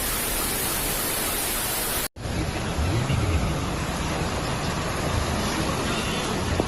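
Steady hiss of heavy rain and rushing floodwater. The sound cuts out abruptly about two seconds in and resumes with a low rumble underneath.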